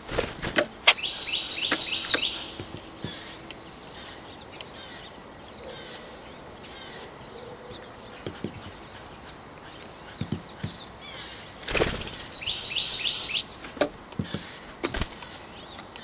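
A small songbird calls in two quick runs of high, falling notes, about a second in and again near the end. Brief wing flutters and a few sharp taps come as birds fly in and out of the feeder.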